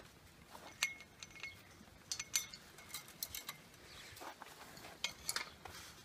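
Scattered light metallic clinks and ticks, a few with a faint ring, coming irregularly.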